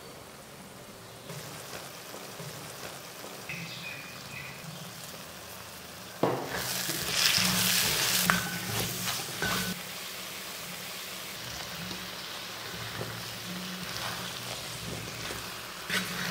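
Onion-tomato masala sizzling in a cast-iron kadai as spice powder is stirred through it with a wooden spoon. The frying starts loud about six seconds in, then settles to a steady sizzle with a few scrapes of the spoon near the end.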